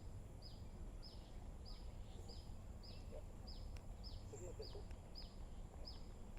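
A bird calling a short, high, downward-sliding note over and over, about one and a half times a second, over a steady low background rumble.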